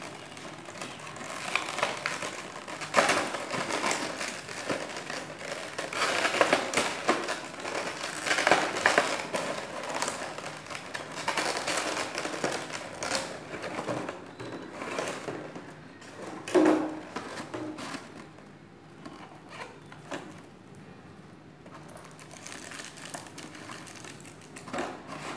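Clear plastic blister packaging crinkling and crackling as it is handled and the action figure is worked free of its tray. It is busiest through the first two-thirds and quieter near the end.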